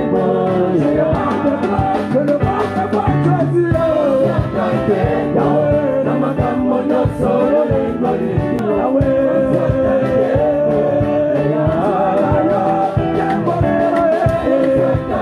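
Live gospel worship music: several voices singing into microphones over a band with a steady beat, amplified through PA loudspeakers.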